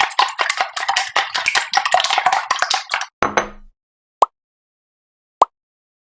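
Eggs being beaten in a bowl: rapid metal clinking against the bowl for about three seconds, then stopping. After a short scrape there is silence, broken twice by a single brief click.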